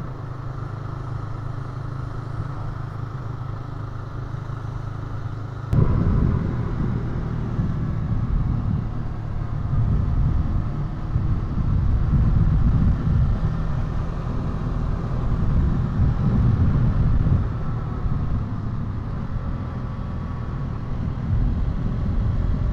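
Motorcycle running on the road: a steady low engine hum, then about six seconds in a sudden jump to louder, uneven rumbling noise with the engine note rising and falling underneath.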